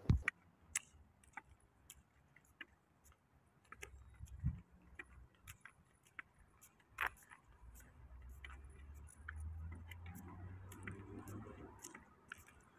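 Faint footsteps on tarmac at a slow walking pace, a light click every half second or so, with a low rumble through the second half.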